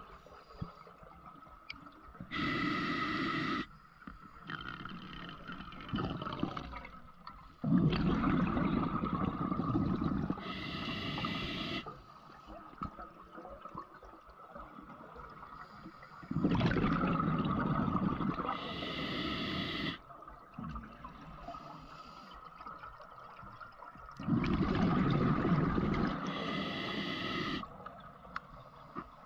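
Scuba diver breathing through a regulator underwater: a short hiss from the demand valve on each inhale and a longer low rumble of exhaled bubbles, repeating about every eight seconds, four breaths in all.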